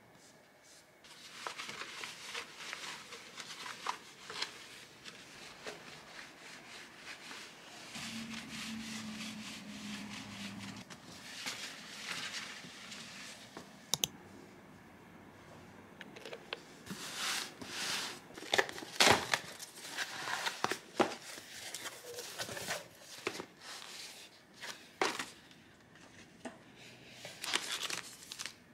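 Paper or plastic packaging being crinkled and torn by hand, with scattered sharp clicks and taps. The handling grows louder and busier in the second half.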